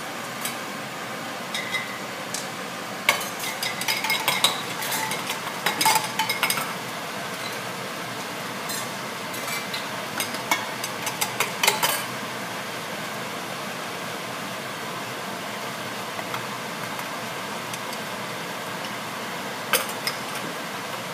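Clinks, knocks and scrapes of a metal cup and canning funnel against a glass jar as boiled snap beans are spooned and packed into the jar. The clatter comes in three bunches, a few seconds apart, over a steady background hiss.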